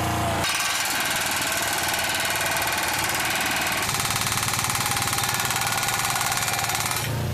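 Heavy machinery running steadily with a fast, even pulsing rattle, its sound changing abruptly twice.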